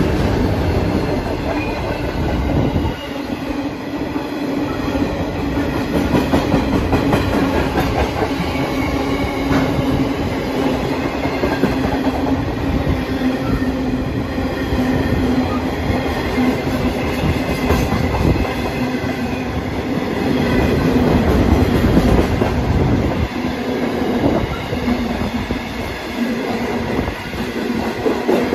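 Freight train passing close by: the diesel locomotive at the start, then a long run of empty steel wagons rolling past, their wheels knocking and rattling on the rails.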